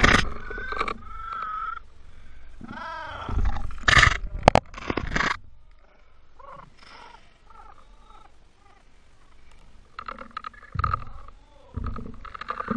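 Seawater splashing and sloshing around a camera held at the sea surface, in several loud bursts. Short pitched cries that waver up and down come in between, faint and repeated in the middle.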